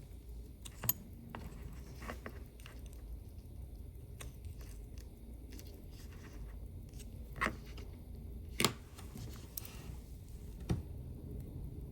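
Faint, scattered small clicks and taps of hand tools working on a wristwatch movement, with four sharper clicks spread through it.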